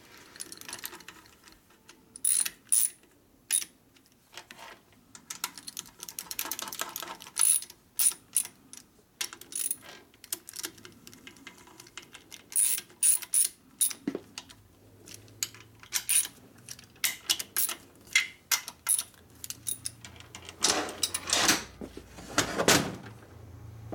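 Irregular sharp metal clicks and clanks from hand work on a Harley-Davidson Ironhead Sportster's transmission and shift mechanism, with two louder ringing clanks near the end.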